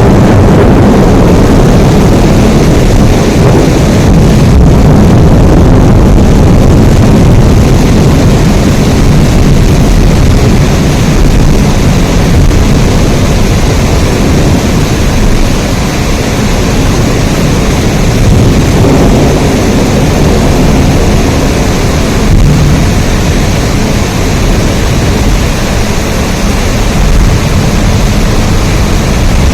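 Heavy rain falling steadily, a loud, dense, even noise with most of its weight in the low range.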